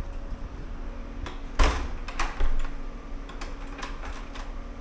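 Hotel room door being handled and shut: a few light clicks, then a sharp knock about a second and a half in followed by two more, over a low steady hum.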